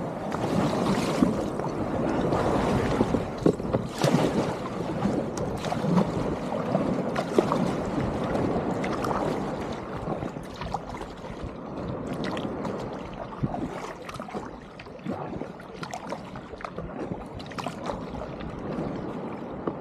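Sea water rushing and foaming around a kayak pushing out through small surf. It eases off into the splash and drip of a double-bladed paddle stroking through calmer water, with many small splashes.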